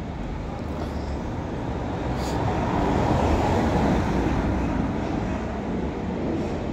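City street traffic noise, with a vehicle passing that swells to its loudest about halfway through and then fades.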